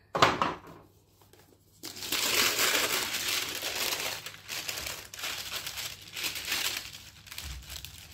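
Sheet of silicone-coated baking parchment crinkling as it is laid out and smoothed by hand. After a short sharp rustle at the start and a brief lull, a dense crinkling sets in about two seconds in, loudest for a couple of seconds, then tails off into softer, intermittent rustles.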